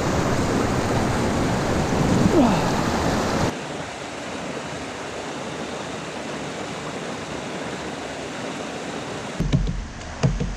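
River water rushing over rocks at a small cascade, loud and close at first, then dropping abruptly to a quieter steady flow about three and a half seconds in. Near the end a few low thumps and knocks break in.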